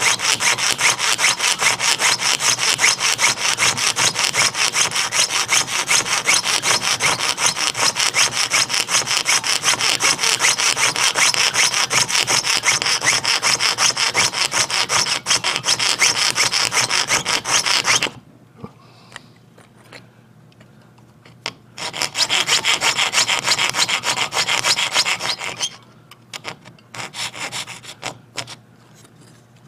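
Jeweller's piercing saw with a very fine blade cutting out a clock wheel blank by hand, in rapid, steady strokes. The sawing stops about 18 seconds in, starts again for a few seconds around 22 seconds, then goes on in a few short strokes near the end.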